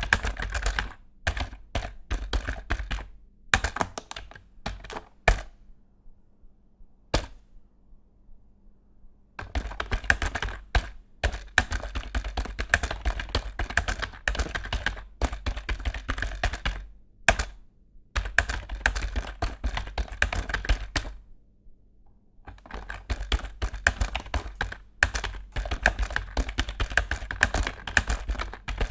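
Fast typing on a budget Microsoft computer keyboard: rapid runs of key clacks. Between about one and nine seconds in, the keystrokes thin out to scattered single presses with gaps, then dense typing resumes with a couple of brief pauses.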